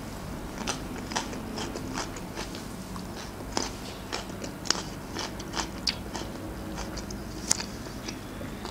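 Close-up mouth sounds of someone chewing crisp raw cucumber: irregular wet crunches and crackles, a few each second.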